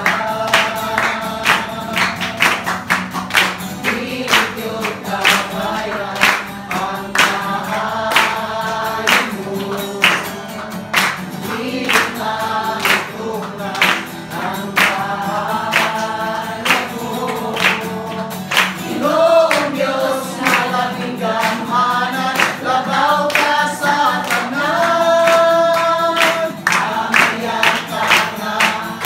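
Worship song sung by a woman leading a group of voices, over a strummed acoustic guitar with a sharp beat about twice a second.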